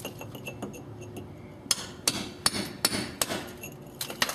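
Hammer driving a steel chisel into a brick wall, chipping out a vent hole. Light clinks at first, then a steady run of sharp ringing strikes about two or three a second, starting a little under two seconds in. The hole is nearly through the brick.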